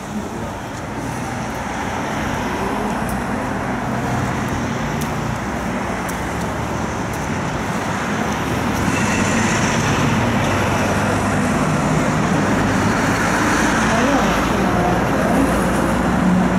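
Road traffic passing, cars and a lorry: a steady wash of noise that grows gradually louder.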